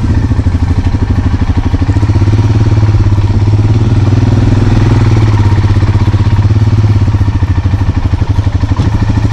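Royal Enfield Himalayan's single-cylinder engine running at a steady pace while the motorcycle rides, its firing pulses loud and even with no revving.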